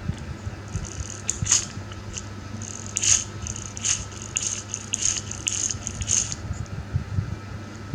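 Light rattling and clicking of a small toy car being handled, a quick run of sharp clicks over several seconds, over a steady low hum.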